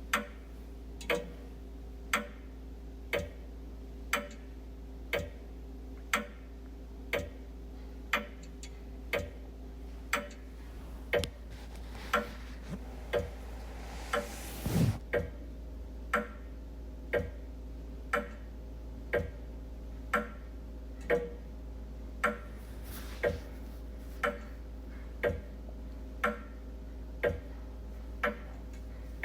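Wall clock ticking steadily, about one tick a second, over a steady low hum. About halfway through a louder noise swells up and ends in a brief thump.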